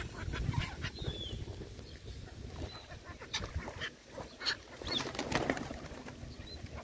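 Feeding birds flapping their wings, with a few short bird calls: feral pigeons, then black-headed gulls and mallards scrambling for bread on the water. A low rumble runs under it, strongest in the first couple of seconds.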